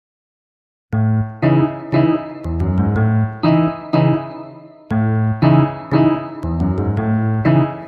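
Background music: a piano introduction of struck chords and notes that ring and fade. It starts about a second in.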